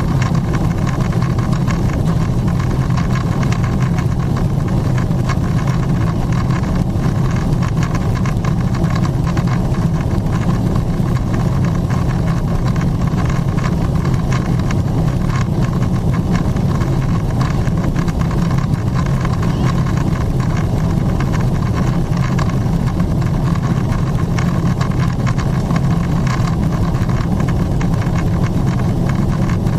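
Steady cabin noise of a Boeing 777-300ER climbing, heard from a window seat: the drone of its GE90 engines under climb power mixed with rushing airflow, heaviest in the low end and unchanging.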